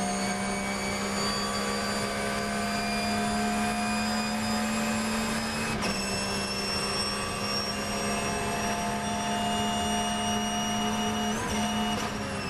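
Porsche 911 GT3 R's 4.0-litre flat-six racing engine at full throttle, heard from inside the cockpit. Its pitch climbs steadily as the car accelerates, with a quick upshift about six seconds in and another near the end, over wind and tyre noise.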